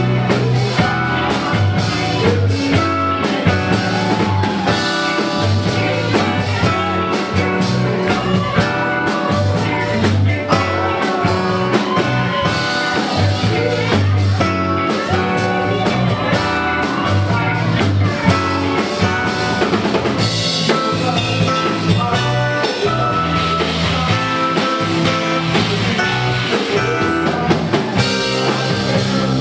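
A rock cover band playing: drum kit, guitar and a steady, repeating bass line.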